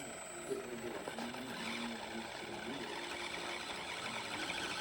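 Small electric motor and gear drive of a 1/24-scale SCX24 RC crawler whining as it crawls, the pitch shifting up and down with the throttle.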